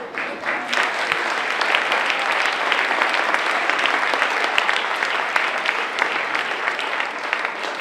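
An audience applauding: many people clapping, swelling over the first second and then holding steady.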